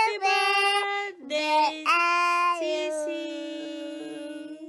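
A small boy and a woman singing together in sustained notes, the last note held long and slowly fading away near the end.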